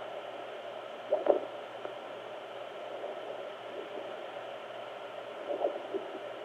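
Home fetal Doppler hissing steadily through its small speaker, with a loud swish about a second in and softer swishes near the end, which the mother takes for the baby moving in the amniotic fluid.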